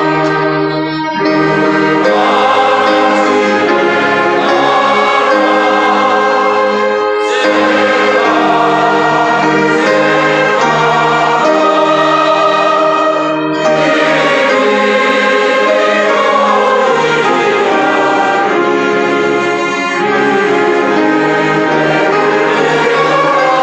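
Church orchestra playing a sacred piece, with choir voices singing along in sustained phrases that pause briefly between lines.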